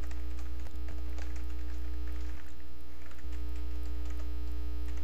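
Steady low electrical mains hum on the recording, with faint scattered clicks of computer keyboard keys being typed.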